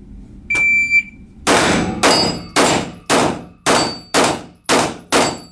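An electronic shot timer beeps once, a steady high tone lasting about half a second. About a second later eight pistol shots follow, roughly half a second apart, each ringing in the hall of an indoor range.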